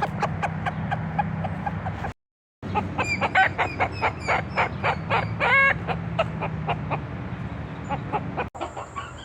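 A bird calling in a rapid run of short clucking notes, about four or five a second, with one longer call around five and a half seconds. The sound drops out for half a second about two seconds in and changes abruptly near the end.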